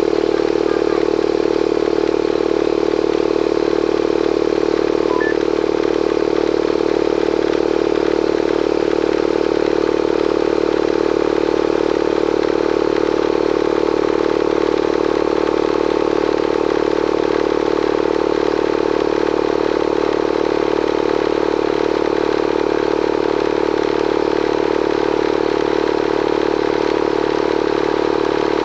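Bostitch air compressor's motor and pump running steadily, building tank pressure after the leaking fitting by the regulator has been resealed.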